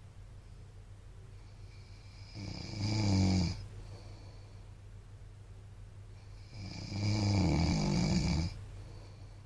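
A man snoring in his sleep: two loud snores about four seconds apart, the second one longer, with a steady low hum underneath.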